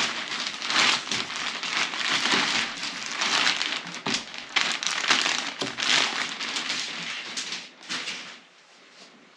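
Packaging being unwrapped by hand, crinkling and rustling in irregular handfuls that stop about eight seconds in.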